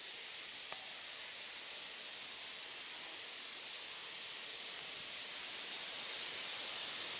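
Steady outdoor background hiss, with no bird calls, growing slightly louder toward the end; one faint click just under a second in.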